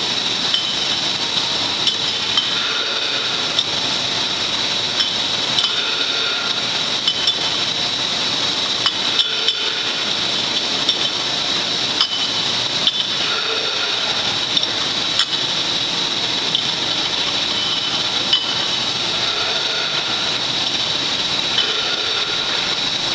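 Bottling line running: glass jars clinking against each other and the conveyor guide rails as they ride the conveyor, irregular clinks over a steady machine noise with a constant high-pitched whine.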